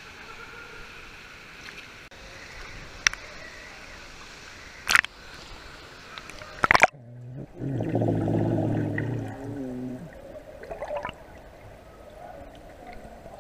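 Pool water lapping and splashing around a waterproof camera at the surface, with a few sharp splashes. About seven seconds in the camera goes under and the sound turns muffled, with a loud low underwater burble for a couple of seconds before settling to a quieter muffled wash.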